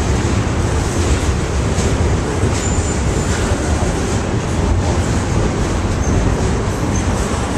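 Freight cars rolling past: a steady rumble of steel wheels on the rails. Brief faint high squeals come from the wheels about three seconds in and twice more near the end.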